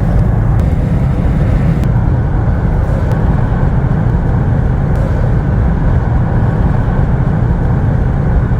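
A road vehicle driving along, a steady loud low rumble of engine and road noise.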